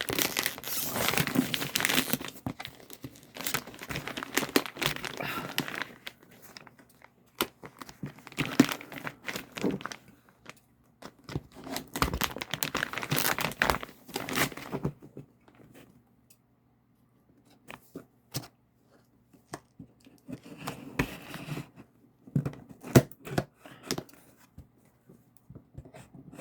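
Packaging being torn open and crinkled by hand, in several long bursts, then a few seconds of quiet and scattered clicks and short rustles near the end.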